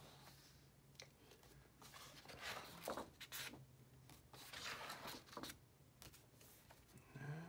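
Faint rustling and swishing of paper pages being turned in a spiral-bound sketchbook, a few times, over a low steady hum.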